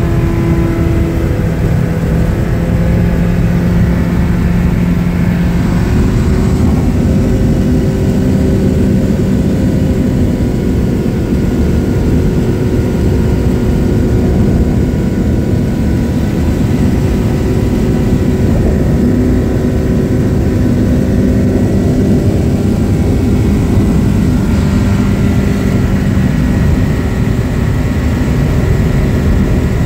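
Homebuilt light aircraft's engine and propeller running steadily in flight, heard from inside the cockpit over rushing air. The engine note shifts slightly in pitch a few times.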